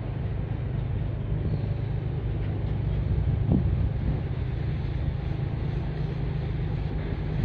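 Wind buffeting the microphone: a steady low rumble, with one brief thump from a gust about three and a half seconds in.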